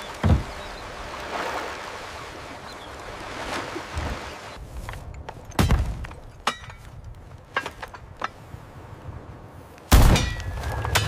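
A muzzle-loading cannon firing near the end: a sudden loud blast that trails off into a low rumble. Before it come a few sharp knocks and clicks of handling.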